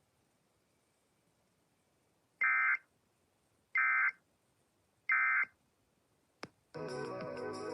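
Emergency Alert System end-of-message tones: three short, identical bursts of shrill digital data squawks, about a second apart, that mark the end of the warning. A click follows, then music starts near the end.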